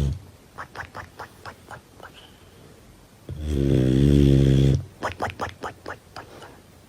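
Snoring: one loud, buzzing snore lasting about a second and a half in the middle, between two runs of faint quick clicks, about five a second.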